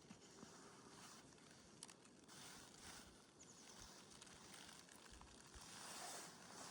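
Near silence: faint outdoor ambience, a soft hiss with a few small clicks and rustles.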